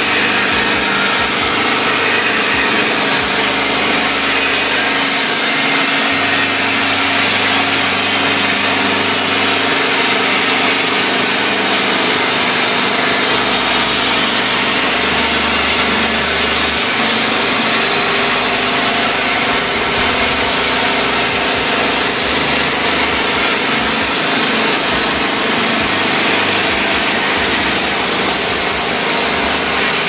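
Logmaster band sawmill resawing a wooden beam: the band blade cutting steadily through the wood, loud and unbroken, with the machine running throughout.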